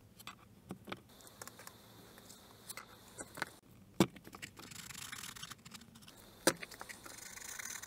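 Pointed hand tool punching a hole through a cardboard clock face. There are scattered light clicks and scraping of the tool working through the card, with sharper taps at about four seconds and again at about six and a half, and a steady scratchy rasping over the last few seconds.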